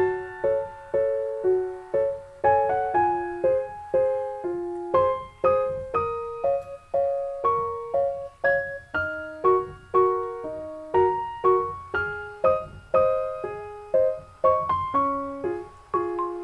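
Gentle solo piano background music: single notes struck one after another, each fading before the next, about two to three a second.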